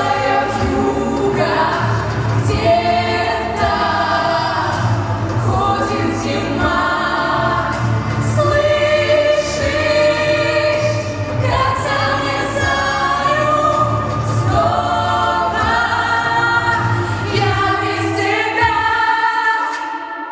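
Pop song's closing section: layered, choir-like vocals hold long sung notes over a steady bass line and light percussion, fading out near the end.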